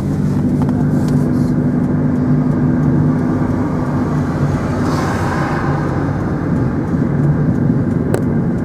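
Steady engine hum and road noise of a moving car, heard from inside the vehicle, with a brief swell of rushing noise about five seconds in and a single click near the end.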